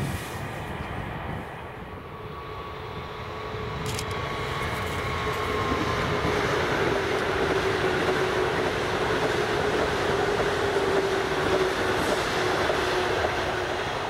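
SBB Giruno RABe 501 high-speed electric multiple unit running past, its rolling noise swelling to a broad peak over several seconds. A steady whine runs through it and drops a little in pitch as the train passes.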